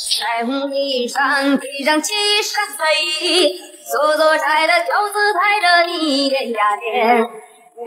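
Background song: a woman singing a Chinese pop melody in a high voice, in sung phrases with short breaks between them.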